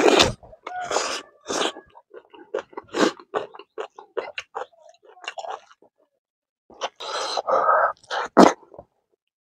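Close-miked chewing and wet mouth sounds of a man eating handfuls of rice, kidney beans and leafy greens: irregular clicks and smacks with louder noisy bursts, the loudest about seven to eight and a half seconds in.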